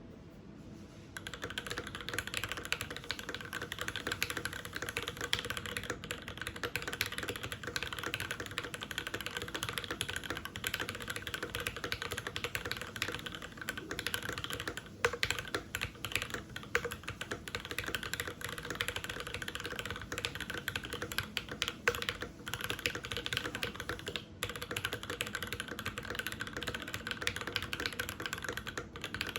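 Custom 65% mechanical keyboard with lubed, filmed JWK Opblack linear switches on a carbon fiber plate, typed on quickly and continuously: a dense clatter of keystrokes starting about a second in, with a few short pauses and occasional louder strokes.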